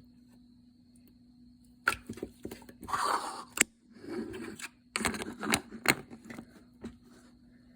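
Slime being handled, squished and stretched, making irregular crackling and several sharp clicks that start about two seconds in.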